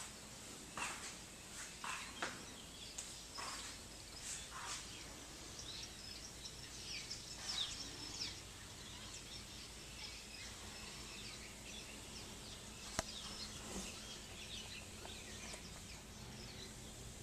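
Several birds chirping and twittering, with many short calls through the first half and the busiest twittering around the middle. A single sharp click stands out later on.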